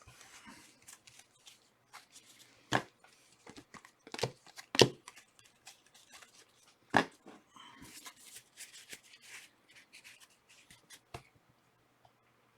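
Trading cards being handled and sorted by hand: scattered light rustles and clicks of card stock, with a few sharper snaps spread through.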